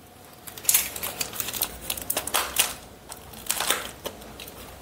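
Clear plastic and foam packaging crinkling and crackling in the hands as it is handled and slit open with a craft knife, in short irregular rustles and clicks.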